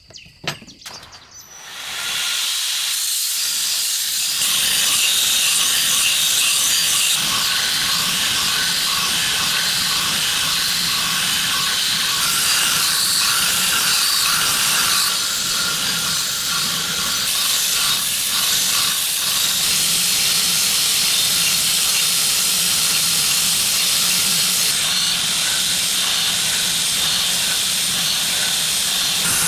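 An electric grinder running with a forged steel knife blade held against it for sharpening: a steady grinding hiss over a low motor hum, starting about two seconds in.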